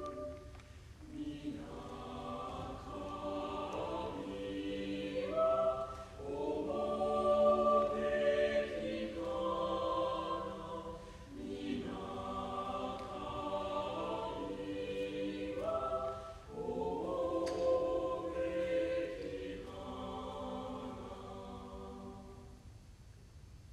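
Choir singing long held chords in phrases separated by short breaks, the final chord fading away near the end.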